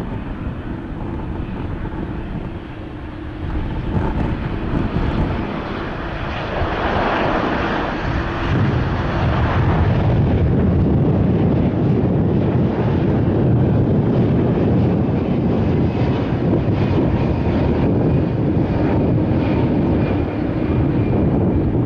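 Jet engines of an arriving Boeing 787-9 airliner, a steady low roar that grows louder about nine seconds in and then holds.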